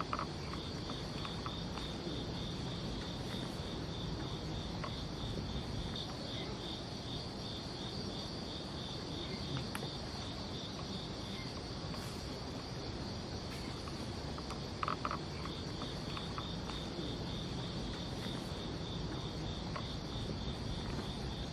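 Night insects chirping steadily: crickets giving a fast, evenly pulsing chirp under a continuous higher trill. A brief knock sounds about fifteen seconds in.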